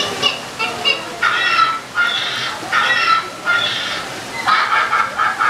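Recorded jungle-bird squawks and screeches from the animatronic toucans' show track, a frenzy of outraged birds: a quick run of short harsh calls, then longer squawks about every half second to a second.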